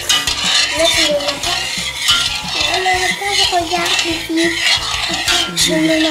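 Metal spoon stirring milky flan mixture in a stainless steel saucepan, scraping and clinking against the pan over and over, with a melody running alongside.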